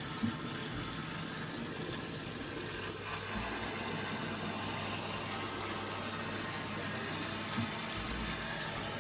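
Water running steadily from a newly fitted kitchen mixer tap into the sink, with hot and cold both on, and a small knock or two.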